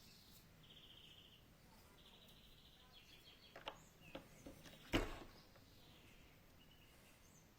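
Faint bird chirps and trills over a quiet background, with a few sharp clicks; the loudest click comes about five seconds in.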